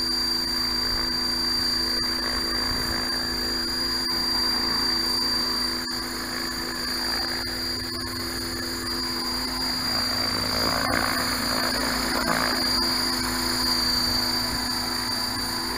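600-size radio-controlled helicopter (HK/T-Rex 600) hovering just above the pavement: a steady high whine over the even hum of the spinning rotor, with a couple of sharp clicks.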